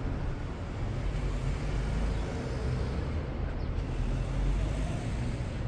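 Steady road-traffic noise, a continuous low rumble with a faint hiss above it.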